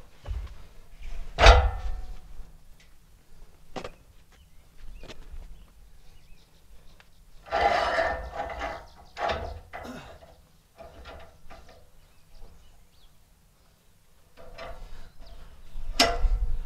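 Scattered clunks and knocks of a log being set and clamped on a band sawmill's steel bed. There is one sharp knock about a second and a half in, a run of clattering around eight to ten seconds, and another knock near the end.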